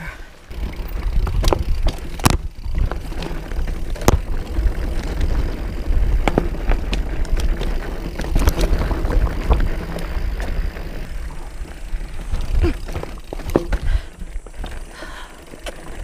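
Plus-tyre full-suspension mountain bike rolling fast down rocky singletrack: tyres crunching over loose stones, with the chain and frame rattling and sharp knocks as it hits rocks, over a steady low rumble.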